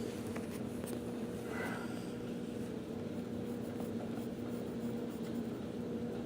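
Pen or pencil scratching on paper while drawing, over a steady low electrical hum.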